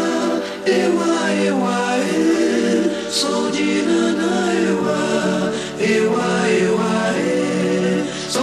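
Background music: several singing voices in harmony, gliding between notes over long held low notes.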